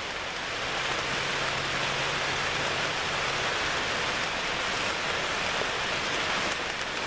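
Light rain falling on a hunting blind: a steady, even hiss.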